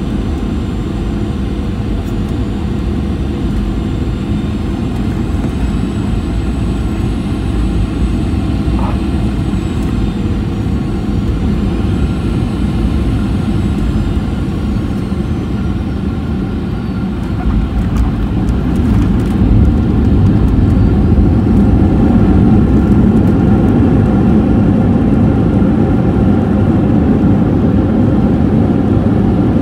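Cabin sound of a Boeing 737-800 with CFM56-7B engines landing, heard from a window seat by the engine: a steady engine and airflow rush with a high engine whine that falls in pitch. About 18 seconds in the noise swells and stays loud, as reverse thrust comes in on the landing roll.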